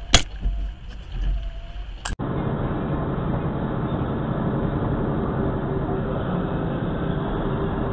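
Steady engine and road drone inside the cab of a truck driving on a snow-covered road, with a faint steady hum, starting about two seconds in. Before it come a sharp knock just after the start and a click at the cut.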